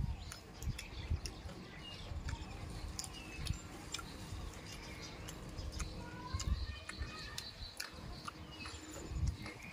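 A person chewing and smacking their lips while eating fish curry and rice by hand, with irregular wet clicks and soft low thumps. Birds chirp now and then in the background.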